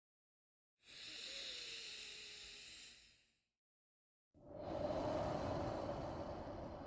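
Slow, deep human breaths for a paced breathing exercise. A long hissy breath starts about a second in, and after a second of silence a fuller, louder breath begins about four seconds in.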